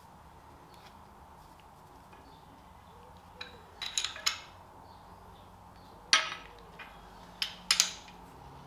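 Steel ring spanner clinking on the bolt heads of a cast-iron oil filter housing as the bolts are nipped up tight. There is a cluster of sharp metallic clinks a little under four seconds in and several more single clinks between six and eight seconds.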